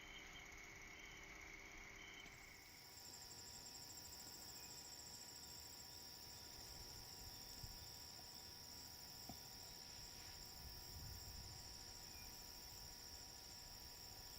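Faint, steady, high-pitched insect trilling, like crickets, over quiet outdoor background. The background changes abruptly about two seconds in.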